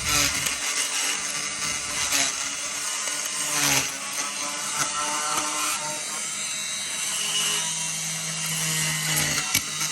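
A power tool sanding paint off a riveted metal bus roof, a steady gritty hiss with small rises and falls. A low steady hum joins in about two-thirds of the way through.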